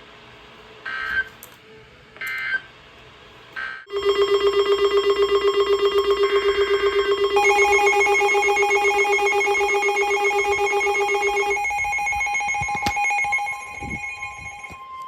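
Emergency Alert System broadcast tones on NOAA Weather Radio. First come three short digital data bursts, then a loud, rapidly pulsing electronic alert tone joined by higher steady tones. Near the end, a single steady alarm tone takes over, the warning alert signal that comes before a new warning message.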